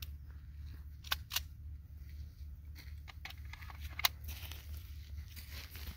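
Steady low rumble of wind on the microphone, with a few short clicks. Two clicks come close together just after a second in, and the sharpest comes about four seconds in.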